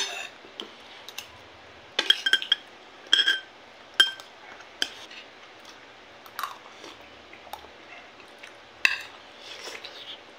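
Metal spoon and fork clinking against a ceramic plate while eating: sharp, irregular clinks, several in quick succession around two to three seconds in, then single clinks at intervals, with quieter eating sounds between.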